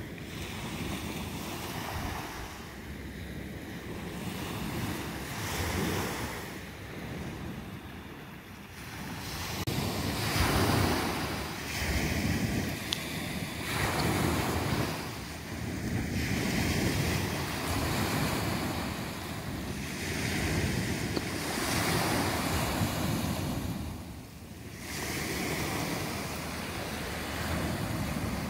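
Sea surf breaking and washing up a pebble beach, swelling and ebbing every few seconds, with wind buffeting the microphone.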